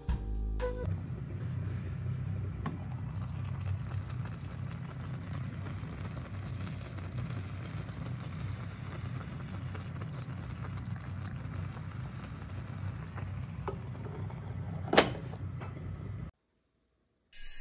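A pot of vegetable and tofu stew simmering on the stove, bubbling steadily. One sharp knock sounds about fifteen seconds in.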